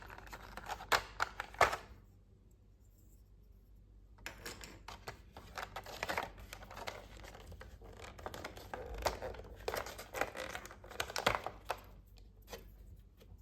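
Toy packaging being unwrapped and handled: a few sharp clicks, a short lull, then a long stretch of crinkling, tearing and scratching of plastic and paper wrapping, ending in a few scattered clicks.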